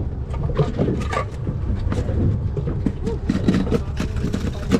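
Boat engine running with a steady low rumble, with scattered sharp knocks on the deck and faint voices.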